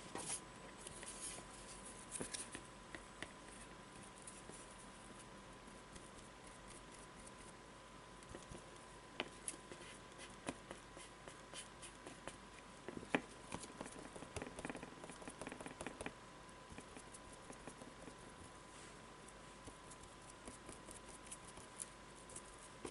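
Faint, scattered soft taps and scratches of a paintbrush dabbing paint onto a painting board, with hands handling the board and palette; a cluster of louder clicks comes about halfway through.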